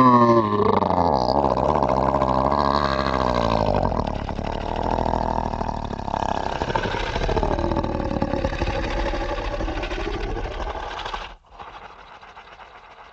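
Monster growl sound effect: a loud, deep, rough roar whose pitch slides down and back up several times. It cuts off suddenly about eleven seconds in, and a much fainter raspy noise follows.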